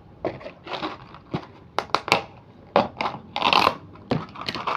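Small plastic toy pieces and their packaging being handled: irregular crinkling rustles with several sharp clicks.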